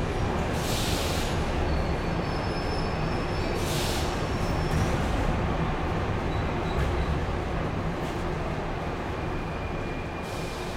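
Metro train at a station platform: a steady low rumble, broken by two short hisses about a second in and about four seconds in, then slowly fading towards the end.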